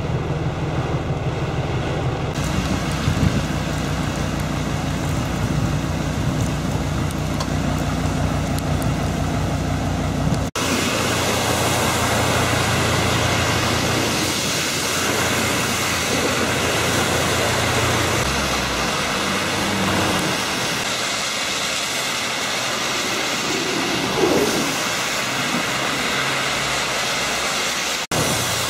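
Heavy rain: first drumming on a car's windscreen and roof over a low steady hum inside the cabin, then, after a sudden cut about ten seconds in, a downpour on an open street. A vehicle drives through standing water and throws up spray as it passes.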